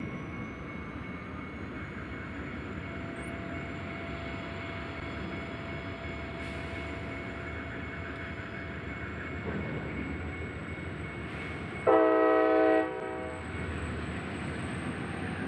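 Steady rumble of a slow freight train led by a GP30 body slug, then about twelve seconds in one loud blast of a locomotive air horn lasting about a second.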